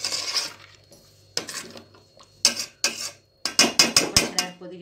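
Steel spoon scraping and clinking against a stainless steel pot while stirring thick chicken gravy. Separate strokes come every second or so, then a quick run of sharp clinks near the end.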